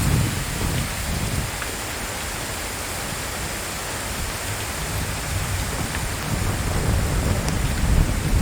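Steady rain falling, with low rolling thunder rumbling underneath, loudest right at the start and swelling again near the end.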